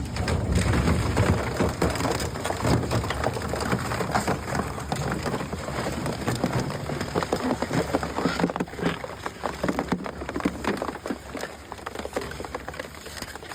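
Twin-shaft shredder crushing a waste refrigerator: a dense run of crackling and cracking over a low rumble, loudest in the first few seconds and easing off.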